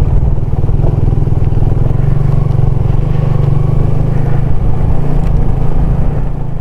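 Motorcycle riding along in rain, the engine and passing air making a steady, loud rumble.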